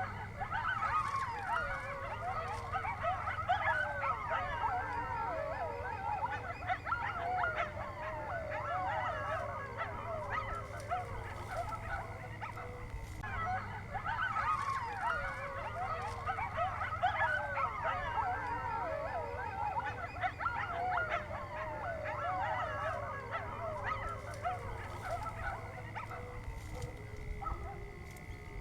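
A chorus of a fox and dogs calling together: many high, wavering yips and howls overlap. The calls come in two long bouts with a short lull about halfway, under a steady faint high whine.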